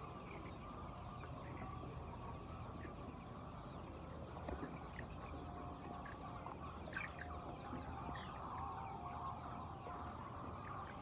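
A flock of laying hens clucking in a steady, overlapping chatter, with a few short, clear calls in the second half. Two sharp clicks come about seven and eight seconds in.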